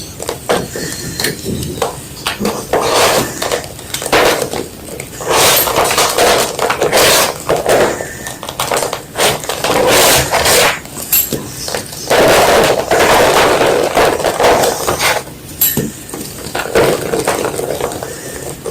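A fresh white block of gym chalk being crushed: irregular bursts of dry crunching and crumbling, some short and sharp, some drawn out over a second or two.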